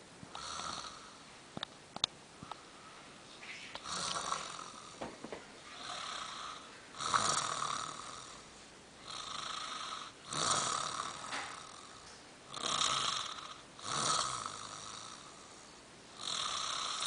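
An elderly woman snoring in her sleep, repeated rasping snores every one to three seconds.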